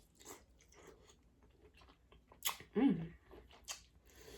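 Close-up mouth sounds of a person chewing seafood: scattered wet clicks and smacks, with a louder smack about two and a half seconds in and a short hummed murmur just after it.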